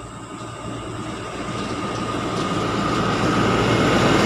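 A truck passing close by, its steady rumble growing louder throughout as it approaches, with a steady high whine running through it.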